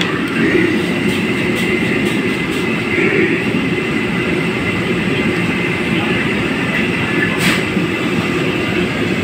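Steady loud roar of kitchen equipment, with a few sharp clicks and clatters over it, the strongest about seven and a half seconds in.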